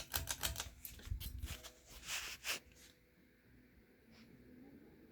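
A quick run of light clicks and rattles for about three seconds, then a faint steady hum.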